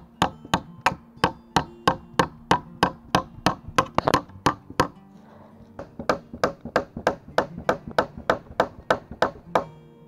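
Nails being hammered into pine log beams: a steady run of sharp strikes, about three a second, a short pause about halfway through, then a second run that stops shortly before the end.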